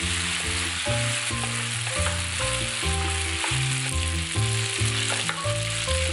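Spaghetti frying in oil in a pan with no water added, a steady sizzle as the pasta's surface dries out while it is tossed with wooden chopsticks. Background music with a stepping melody of low notes plays along.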